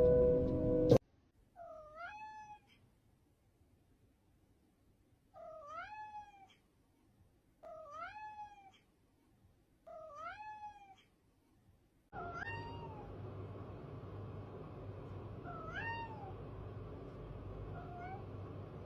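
Domestic cat meowing again and again, each meow a short call that rises and then falls in pitch, four of them about two seconds apart. From about twelve seconds in, three more meows come over a steady background hum. A second of loud music sits at the very start.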